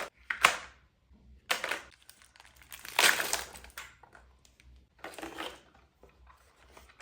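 Plastic packaging crinkling and rustling in several short, irregular bursts as it is handled.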